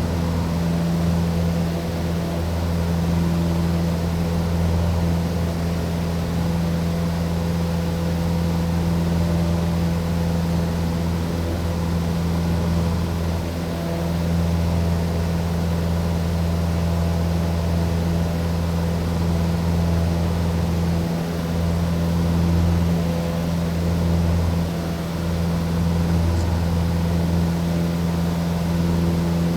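Aircraft in constant flight, its engines giving a steady, deep drone that holds one pitch throughout, with only slight swells in level.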